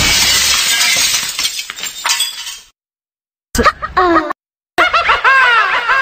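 Glass shattering: a loud crash with tinkling shards that fades out over about two and a half seconds. After a short silence, a person laughing, 'ha haa haa', in quick rising-and-falling bursts.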